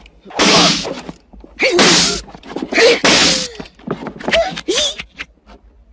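Five loud slaps in quick succession, about a second apart, each a sharp whack with a short rush of noise, in the style of film fight sound effects.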